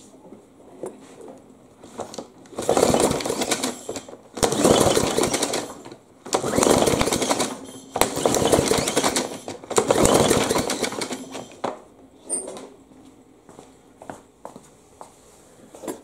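Push mower's recoil starter pulled several times in a row, each pull spinning the engine over with the rope whirring, without firing: it is being cranked for a compression test with a gauge in the spark plug hole. A few light clicks follow near the end.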